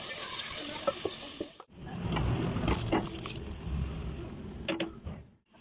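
Marinated chicken sizzling in a steel pot as a wooden spatula stirs it, cut off abruptly about a second and a half in. Then a low rumble with a few light clicks and one sharper clink near the end.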